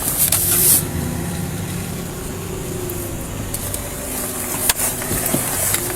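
A vehicle engine running steadily, with a short hiss at the start and a single sharp click about five seconds in.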